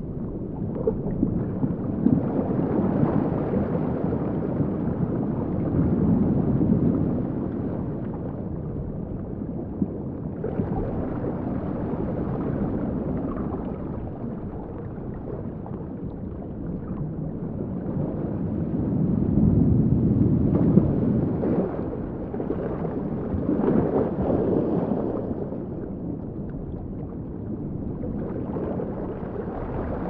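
Sound-designed underwater sea ambience, built from scratch rather than recorded by the camera: a low, muffled wash of water that slowly swells and ebbs, with a few faint clicks.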